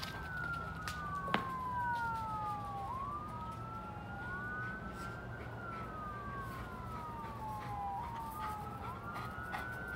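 Two emergency-vehicle sirens wailing out of step with each other. Each climbs quickly, then falls slowly over a few seconds, again and again. A single sharp click comes about a second and a half in.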